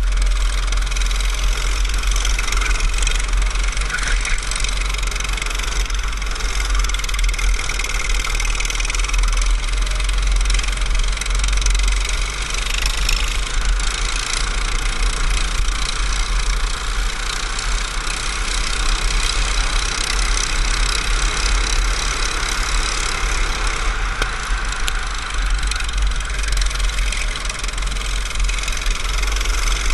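Go-kart engine running at speed on the track, heard from an onboard camera mounted on the kart. It runs steadily throughout, with a deep rumble underneath.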